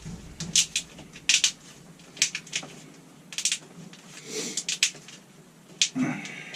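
Plastic wrap being handled and fitted by hand in a truck cab: scattered sharp clicks and crinkles, about eight in all, irregularly spaced.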